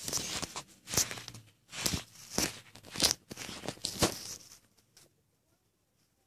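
Rustling, scraping handling noise as the toy figures and the camera are moved about by hand: a run of rough bursts, about one every half second to second, that stops about four and a half seconds in.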